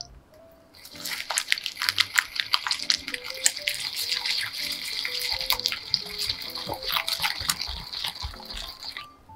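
Hand whisk beating egg into creamed butter and sugar in a glass bowl: rapid wet sloshing with a fast clatter of the wires against the glass. It starts about a second in and stops abruptly near the end.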